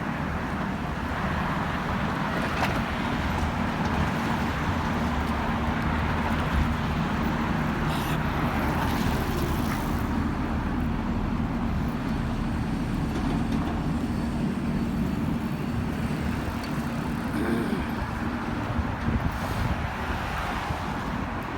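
Steady road traffic noise, with the low hum of engines running and a few faint brief clicks.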